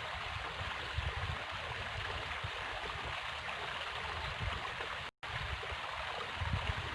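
River water flowing steadily, a continuous rushing hiss, with irregular low rumbles on the microphone. The sound cuts out for an instant about five seconds in.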